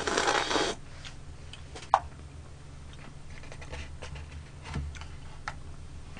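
A loud slurp of soup broth from a bowl, then about two seconds in a single sharp knock as the bowl is set down on the table. Faint clicks and taps follow.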